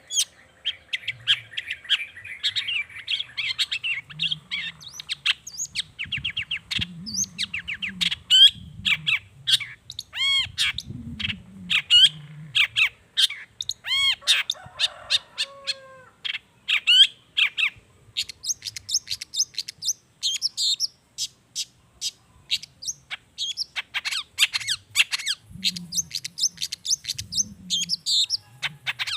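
Long-tailed shrike (cendet) singing a fast, varied song of sharp chirps and squawks. Some notes sweep up and down, typical of a shrike's song filled with calls copied from other wild birds.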